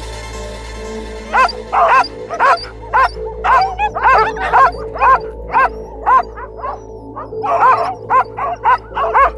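Harnessed sled dogs (huskies) barking repeatedly in short, loud calls, about two a second, starting about a second in, over steady background music.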